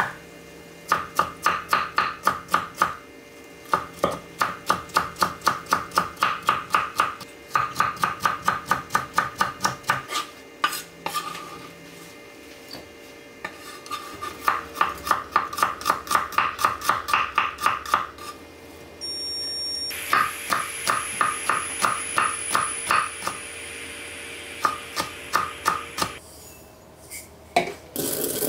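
Kitchen knife chopping rapidly on a cutting board, in several quick runs of about six strokes a second with short pauses between them. A steady hiss runs under the last runs.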